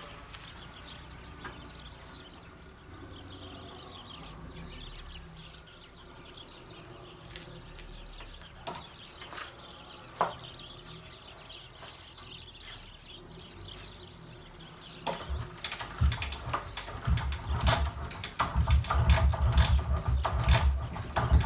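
MZ ETZ 250 single-cylinder two-stroke motorcycle being kick-started: a few faint clicks at first, then from about fifteen seconds in a run of repeated, irregular heavy thumps and clattering from the kickstart lever and its ratchet as the engine is turned over, growing louder toward the end.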